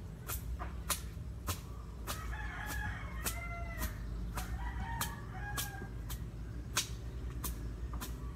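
A rooster crowing a couple of seconds in, with clucking calls after it. Over it, sharp regular knocks about twice a second.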